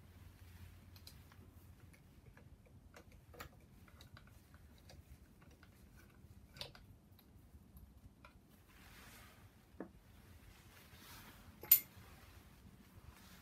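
Scattered light clicks and taps of metal parts and hand tools being handled during engine disassembly, with one sharp, much louder click near the end. Fabric rustles close to the microphone now and then.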